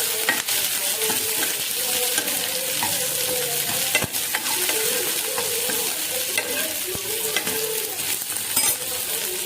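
Sliced okra with onion and green chilli sizzling steadily as it fries in oil in a kadai, being stirred, with a few sharp clicks of the spatula against the pan.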